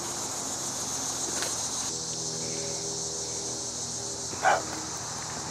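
Steady high-pitched chorus of woodland insects, with people walking on leaf litter. About four and a half seconds in there is one short, loud, sharp sound.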